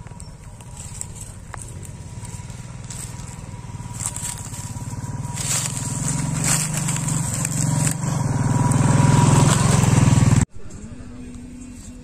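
Motorcycle engine running as the bike rides up a dirt track, growing steadily louder as it draws close, then cut off suddenly about ten and a half seconds in.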